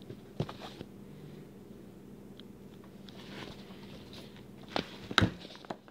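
Handling noises close to the microphone: a few sharp clicks and taps, loudest in a cluster about five seconds in, over a faint steady hum.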